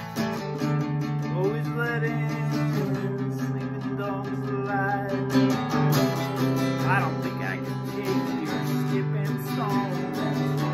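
Acoustic guitar strummed in a steady chord progression, the chords changing every few seconds.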